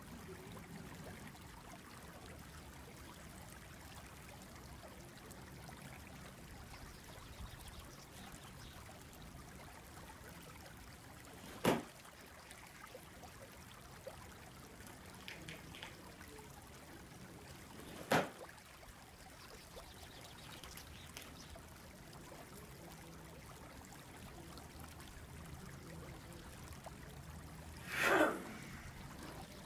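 Silk tai chi uniform snapping sharply twice during fast Chen style power strikes, then a longer, louder swish near the end as a kick is thrown with both arms swung out, over a steady faint hiss.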